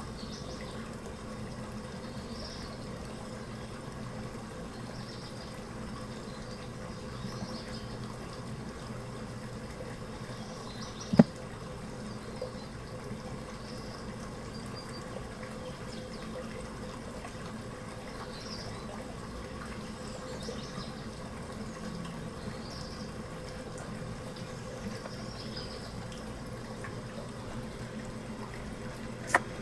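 Steady flowing-water-like noise with faint, short high chirps every few seconds, like distant birds or insects. A sharp click about eleven seconds in, and another near the end.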